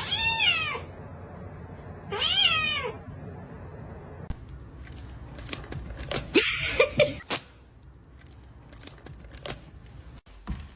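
A cat meowing twice, each call rising and then falling in pitch, near the start and about two seconds in. About six seconds in comes a short, louder noisy scuffle with several clicks and knocks.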